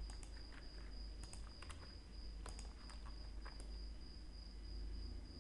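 Faint computer mouse and keyboard clicks: mouse-wheel scrolling, button presses and a key press, heard as scattered sharp clicks over a steady high-pitched whine and a low hum.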